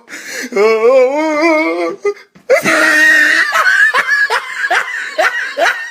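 People laughing hard and loudly: a long, wavering high-pitched laugh, a brief break, then a shrill shrieking burst about two and a half seconds in, followed by rapid repeated bursts of laughter.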